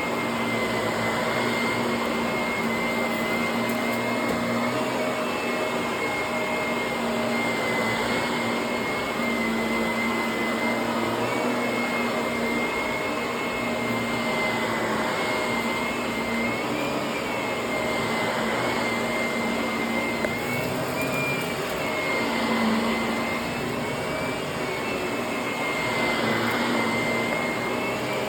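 Upright vacuum cleaner running continuously over carpet: a steady high whine over a rushing air noise and a low hum, with the pitch wavering slightly and the sound swelling gently every few seconds as it is pushed back and forth.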